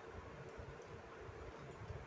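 Faint steady hum and hiss with soft, irregular low bumps.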